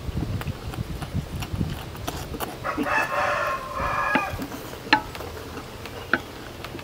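A rooster crows once, a call of about a second and a half starting nearly three seconds in. A couple of sharp clicks follow near the end.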